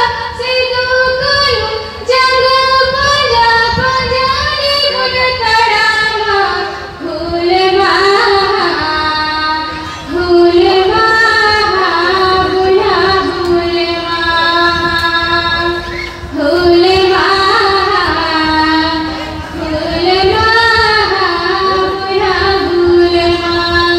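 A woman singing solo into a microphone over a public-address system: a slow melody of long held notes that bend and glide, with short breaks for breath and no instruments.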